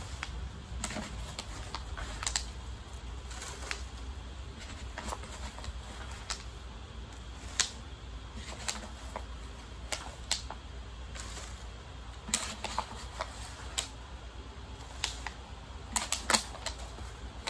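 A plastic cup scooping potting mix from a plastic bucket and tipping it into small plastic nursery pots: irregular scrapes, taps and knocks of plastic on plastic, with soil pouring. The knocks come in a quick cluster near the end.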